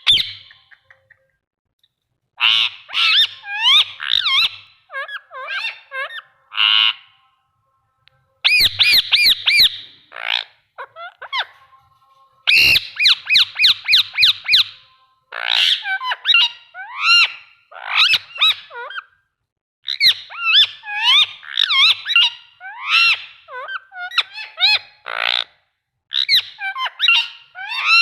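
Indian ringneck parrot calling in loud bursts of high, bending squawks and whistles, with fast runs of repeated chirps and short pauses between bursts.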